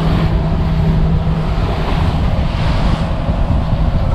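Wind buffeting the microphone over water rushing past the hull and the churning wake of a 2019 Sea Hunt BX 22 BR center-console boat under way at trolling speed. The steady low hum of its outboard motor runs underneath, a little stronger in the first second or so.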